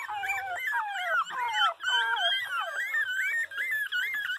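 Pinscher puppy crying: an unbroken string of high-pitched whimpering whines, each rising and falling, two or three a second.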